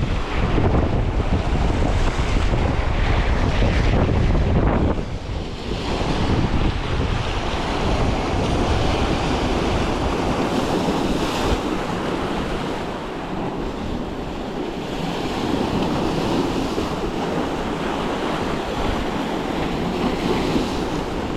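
Wind buffeting the microphone over sea waves washing in. The low wind rumble is heaviest for the first five seconds, then eases, leaving a steady rushing wash of surf.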